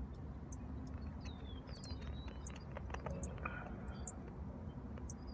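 Outdoor ambience: a steady low rumble with scattered short high chirps and a brief falling whistle from birds.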